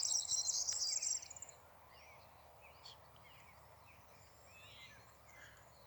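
A loud, rapid, high-pitched trill for the first second and a half, then faint scattered bird chirps over quiet open-air background.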